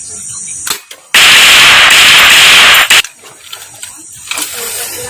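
Loud gunfire sound effect dubbed over an airsoft gun: one sustained automatic burst of about two seconds, clipping, cut off with a sharp crack, after a small click about a second in.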